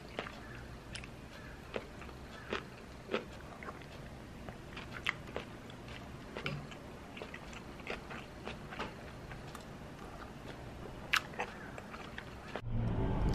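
A person eating: chewing, with spoon and chopsticks clicking now and then against ceramic bowls and a plate. Music starts near the end.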